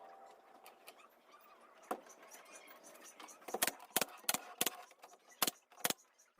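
A series of sharp, short knocks, irregularly spaced: one about two seconds in, then a cluster of about seven between three and a half and six seconds in.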